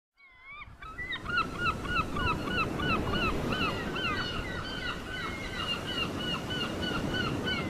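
A flock of birds calling: many short, sliding cries repeating several a second, over a low, steady rushing noise. The sound fades in over the first second.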